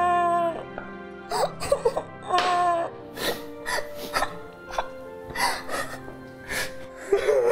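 A woman crying, with whimpering sobs and several sharp sniffs or sobbing breaths, over soft background music of held notes.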